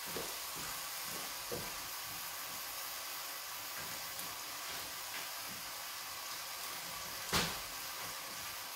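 Ossobuco and soffritto sizzling steadily as they brown in a stainless steel pot over a raised gas flame. A single sharp knock about seven seconds in.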